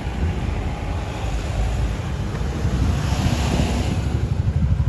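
Low rumble of a nearby vehicle engine mixed with wind buffeting the microphone, growing louder toward the end.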